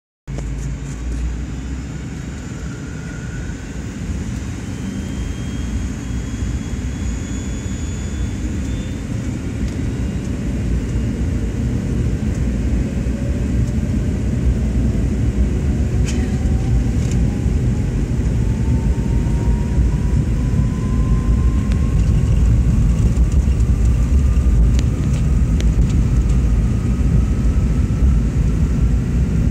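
Airliner's takeoff roll heard from inside the cabin: the engines at takeoff power and the wheels rumbling on the runway, growing steadily louder as the plane speeds up. A thin whine rises slowly in pitch through the run.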